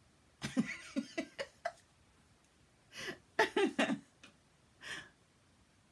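A woman's voice, soft and half-whispered, in a few short bursts about half a second in, around three seconds in and briefly near five seconds, with quiet between them.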